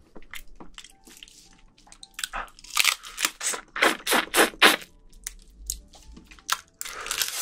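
Close-miked eating of soy-marinated raw crab (ganjang gejang): wet sucking and slurping of the meat from the shell, with crunching of thin shell and smacking chews. A run of louder wet smacks and crackles comes from about two to five seconds in.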